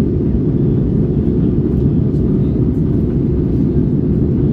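Steady low rumble of engine and airflow noise heard inside an Airbus A320 passenger cabin.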